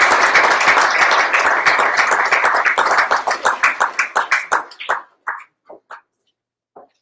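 Audience applauding, dense at first, then thinning to scattered single claps and dying out about five seconds in.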